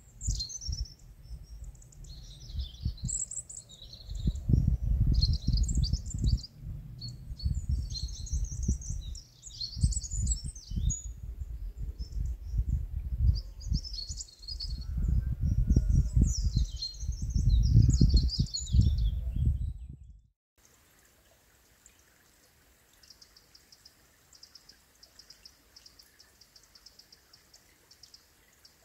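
Small birds chirping and singing in short high phrases over a loud, gusty rumble of wind on the microphone. Both cut off about two-thirds of the way through, leaving only a faint, fast, high ticking call.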